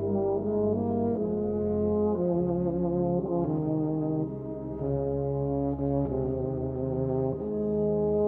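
Brass music: several brass instruments playing slow, held chords that change about once a second.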